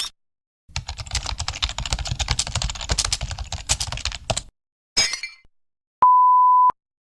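Computer keyboard typing sound effect: rapid key clicks for about four seconds. Then a brief bright burst, and a steady one-tone censor bleep lasting under a second near the end.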